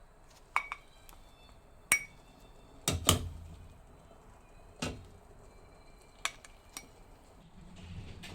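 Spoon clinking and knocking against bowls, about eight sharp strikes with a short ring after several of them; the loudest is a double knock about three seconds in.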